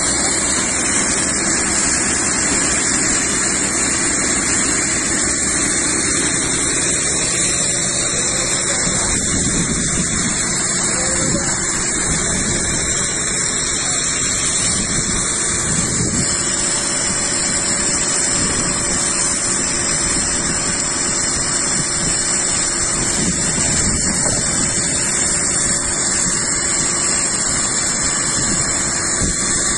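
Fire engine's water pump running steadily, a constant mechanical rush with a high whine.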